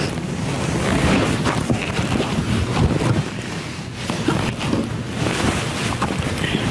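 Wind buffeting the microphone: an uneven, rumbling rush of noise.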